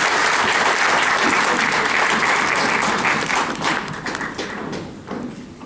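Audience applauding, dense at first and thinning to scattered claps after about four seconds.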